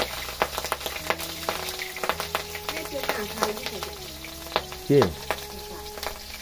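Hot cooking oil spitting and crackling in a frying pan as food is stirred in it. A brief louder sound falling in pitch comes about five seconds in.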